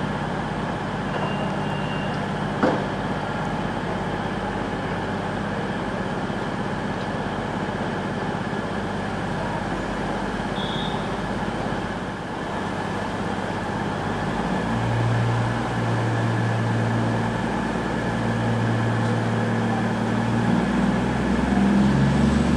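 CrossCountry Voyager diesel multiple unit standing at a platform with its underfloor diesel engines idling in a steady hum. A single sharp clunk comes about two and a half seconds in, and the engine hum grows louder in the second half.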